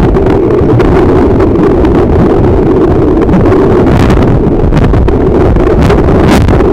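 Loud, muffled underwater noise from a camera held in the sea: a steady rush of water against the housing, with scattered short crackles.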